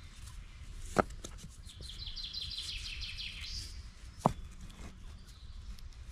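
Stones knocking sharply against stones as they are set into a ring, once about a second in and again about four seconds in. Between the knocks a bird sings a rapid run of high notes.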